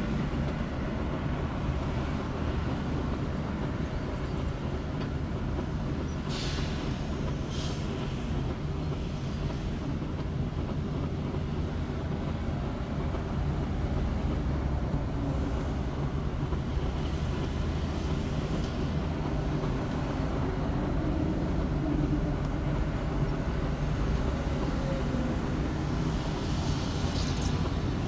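Heavy diesel earthmoving machinery running steadily with a low engine drone. Brief hisses come twice about six to eight seconds in, and again near the end.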